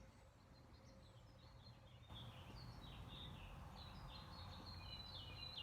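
Faint songbirds chirping: a string of short high chirps and calls that starts about two seconds in, over a low background hush.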